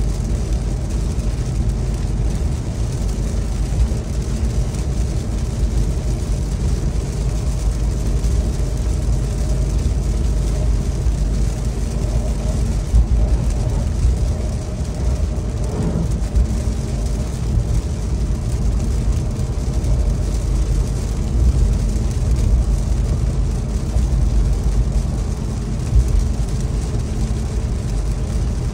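In-cabin road noise of a Ram 1500 TRX pickup, its supercharged 6.2-litre V8, cruising at about 50 mph on a wet road: a steady low drone with tyre hiss. A few brief thumps stand out.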